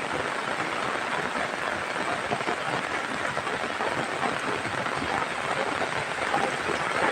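Heavy rain falling steadily, a dense, even patter.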